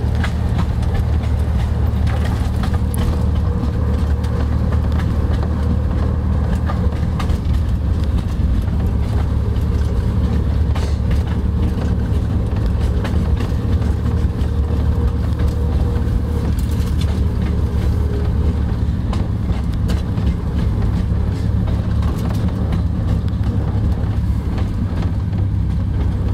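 Narrow-gauge diesel train running steadily, heard from inside: a constant low diesel drone, with scattered clicks and knocks of the wheels on the track.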